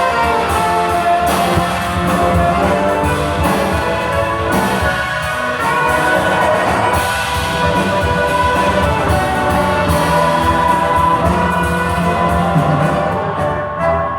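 Instrumental ensemble music with brass, playing sustained chords and melody lines without a break.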